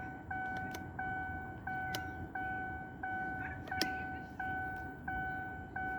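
A 2015 Chevrolet Camaro's warning chime, the kind it gives with the ignition on and the door open, repeating steadily about three times every two seconds. A few faint clicks sound among the chimes.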